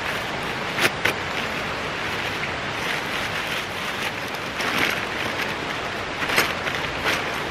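Nylon stuff sacks rustling and crinkling as they are handled and opened, with a few short sharp crackles, over a steady rushing background noise.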